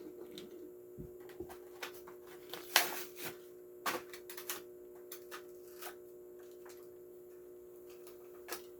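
Faint scattered clicks and crackles of a Hot Wheels car's plastic blister pack and card being handled and opened, with a sharper snap about three seconds in, over a steady low hum.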